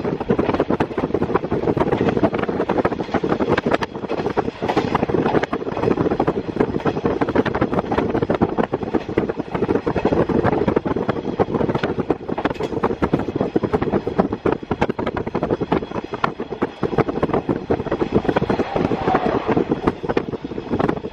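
Inside a JR East KiHa 48 diesel railcar under way: the diesel engine and the wheels on the rails run steadily, with wind rushing in through an open window.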